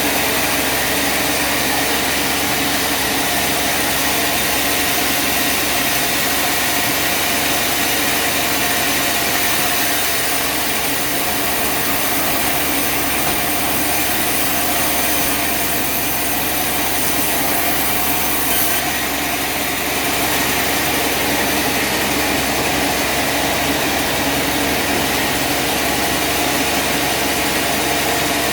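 Bandsaw sawmill machinery running steadily: a continuous engine hum under a constant hiss, with no pauses or sharp knocks.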